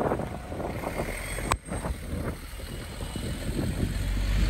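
Road traffic with wind gusting on the microphone; a single sharp click about a second and a half in, and a low rumble building near the end.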